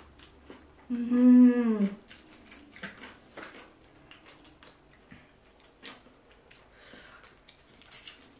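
A long hummed "mmm" of enjoyment about a second in, followed by soft, scattered clicks, cracks and wet squishes of shrimp and crawfish shells being peeled by hand and of the meat being eaten.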